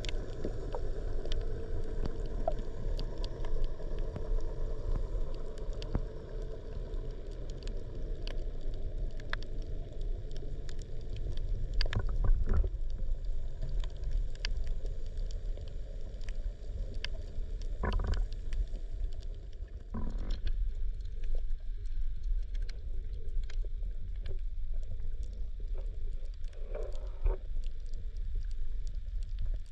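Underwater sound of a shallow reef picked up by the camera: a steady low rumble of moving water with scattered faint sharp clicks, and a few louder knocks about midway.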